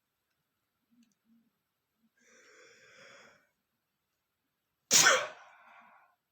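A person sneezing: a quiet breathy 'ah' build-up about two seconds in, then one sudden loud 'achoo' about five seconds in that trails off over about a second.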